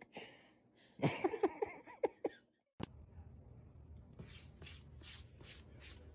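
A regular series of short, dry scratching strokes, about three a second, begins after an abrupt cut. Before the cut there is a brief noisy burst with a pitched voice-like sound in it.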